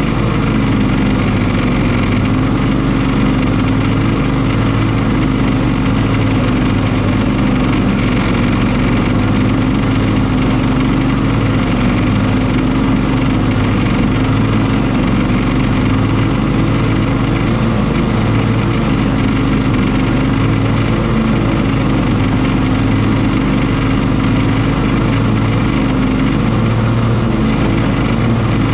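Cub Cadet XT1 Enduro ST54 riding lawn mower's engine and cutting deck running steadily while it mows through tall grass and weeds.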